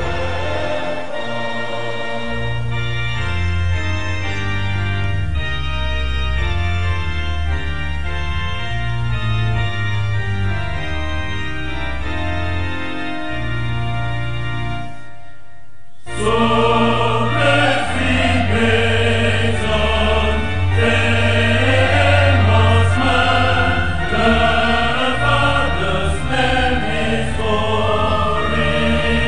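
Choral music with singing voices over low, held accompaniment notes. The music dips briefly about halfway through, then comes back fuller.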